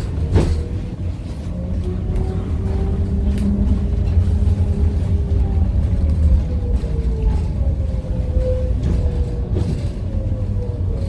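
GVB Amsterdam tram 840 running, heard from inside the car: the electric traction motors whine in tones that slowly rise and fall in pitch over a steady low rumble of wheels on rails. Two sharp knocks right at the start.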